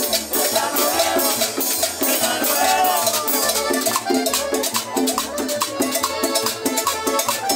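A small Latin dance band playing an up-tempo number with maracas, drums and a pulsing bass on a steady beat. A gliding melody line carries the first few seconds, then gives way to short repeated riffs.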